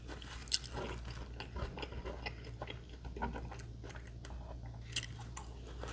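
A person chewing food close to the microphone: irregular small wet clicks and soft crunches, over a steady low hum.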